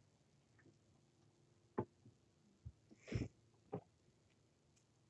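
A few faint, sharp knocks and clicks, with a short hiss a little after three seconds in.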